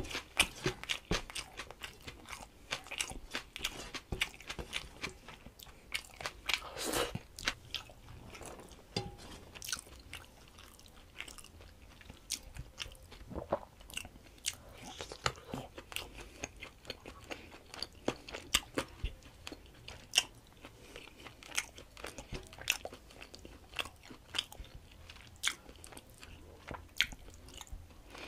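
Close-up mouth sounds of a person eating rice and chicken curry by hand: chewing and lip smacking, a steady run of irregular sharp, wet clicks.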